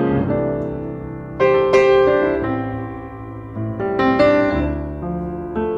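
Background solo piano music: notes and chords struck and left to ring out and fade, with new strikes about a second and a half in, around four seconds in and again near the end.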